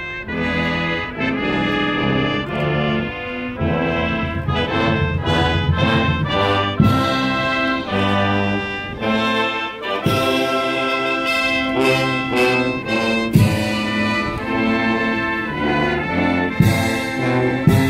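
Naval military brass band playing, with trumpets and trombones over a low brass line. Sharp drum or cymbal strokes come roughly every three seconds in the second half.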